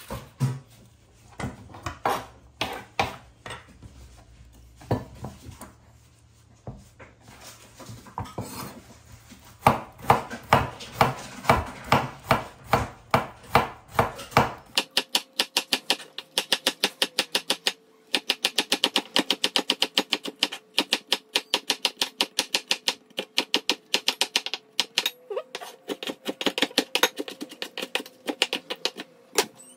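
A chef's knife chopping bitter melon on a wooden cutting board. It starts with scattered scrapes and taps of a spoon hollowing out the seeds, then steady knife strokes about two a second, then fast chopping at about five or six strokes a second from about halfway in.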